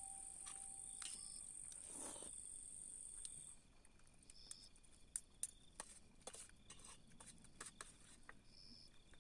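Steady high insect trill, typical of crickets, that cuts off about a third of the way in. After that, faint sharp clicks and taps of a utensil against a metal food tin as someone eats.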